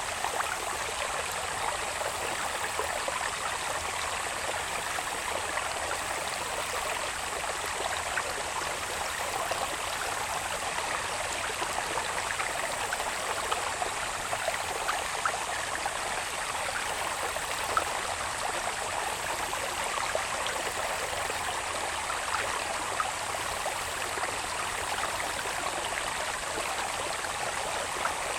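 Water babbling steadily along a small irrigation channel, with a thin, steady high-pitched insect drone above it.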